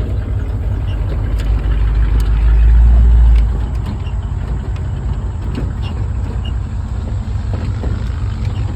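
Truck driving slowly over rough farm ground, heard from the truck bed: a steady low engine and road rumble that swells louder for a second or so about two seconds in, with scattered knocks and rattles.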